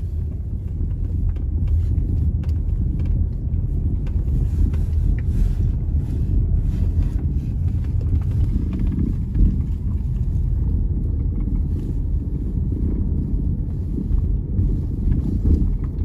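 Volvo XC60 cabin rumbling steadily with road noise while driving, with faint, irregular clicks and knocks from the rear interior trim below the rear quarter window, the sharpest about nine seconds in. This is the car's new body rattle, and its exact cause is not yet known.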